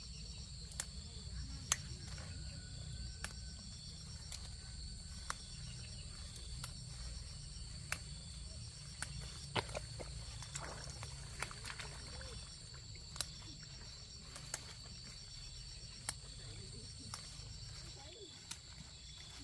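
Insects singing steadily in a high, even drone with a faint pulsing chirp, under sharp clicks or taps about every second or two and a low rumble.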